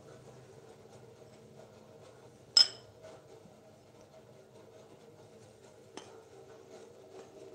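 A single sharp clink of crockery being knocked or set down about two and a half seconds in, ringing briefly, followed by a much fainter tap near the end, over a low steady hum.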